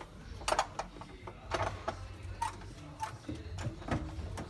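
A series of irregular sharp taps and clicks, about eight to ten in four seconds, a couple of them with a short ringing tone after the hit.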